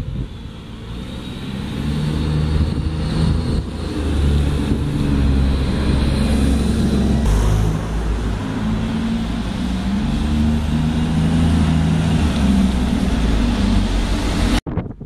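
Diesel engine of a single-deck bus pulling past close by, a low note whose pitch rises and falls in steps as it works through the gears. The sound cuts off abruptly near the end.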